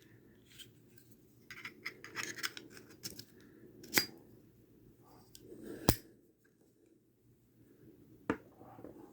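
Vintage Zippo lighter being handled: brief metal scraping and rubbing, then three sharp metallic clicks a couple of seconds apart, the loudest about six seconds in.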